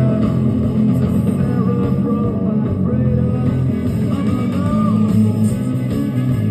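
Rock song with a singing voice, played through a SEOM SA-4160 stereo amplifier and its speakers as a working test.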